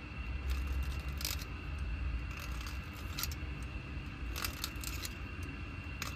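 Utility knife blade scraping and shaving the rolled inner edge off the end of a freshly cut copper pipe: small irregular metallic scrapes and clicks over a low steady hum.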